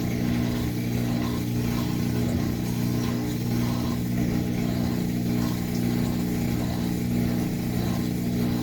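Washing machine running its final spin and drain on a newly replaced drain pump: a steady motor hum with a low, even tone.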